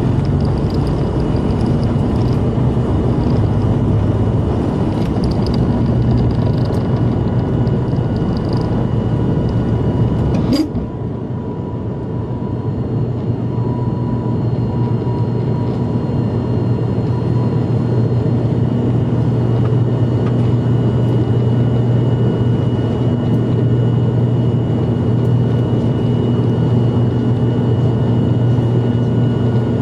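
ATR 72-500 turboprop's Pratt & Whitney PW127 engines and propellers at takeoff power, a loud steady drone with a deep propeller hum, heard from inside the cabin. About ten seconds in there is a sharp clunk, and the runway rumble drops away as the aircraft lifts off and climbs.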